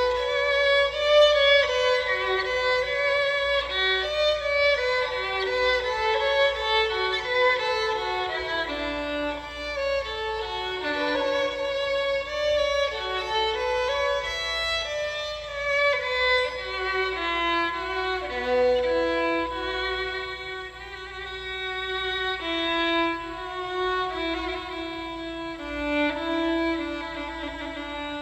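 A Romanian-made violin, new and not yet played in, bowed through a slow melody of held notes with a smooth, mellow, dark tone.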